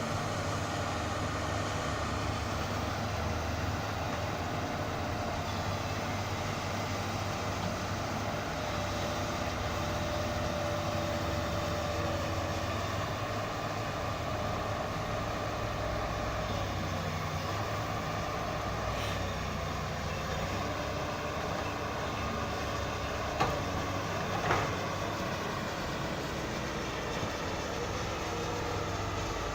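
Volvo 220 excavator's diesel engine running steadily while it works, with two short knocks about a second apart near the end.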